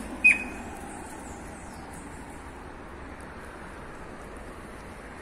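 Steady outdoor background noise in a rural yard, with one short, sharp high chirp about a third of a second in.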